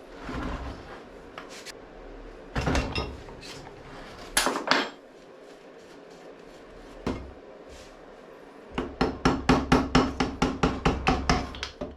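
Engine parts and hand tools knocking and clinking on a workbench during an engine teardown. In the last three seconds comes a quick, even run of about fifteen hammer taps on metal, roughly five a second, each with a short ring.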